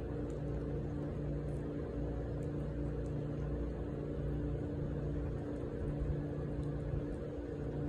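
A steady, low machine hum of several constant pitches runs throughout. Above it, faint crisp ticks come irregularly: a cat crunching dry kibble.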